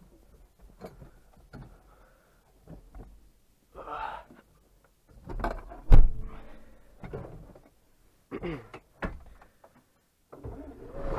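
Scattered knocks and clicks with one loud thunk about six seconds in. Near the end the John Deere 4440's six-cylinder diesel starts up and settles into running.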